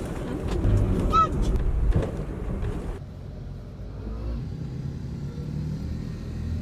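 Road vehicle running with a low steady rumble, busier for the first few seconds and then dropping abruptly to a quieter hum about three seconds in.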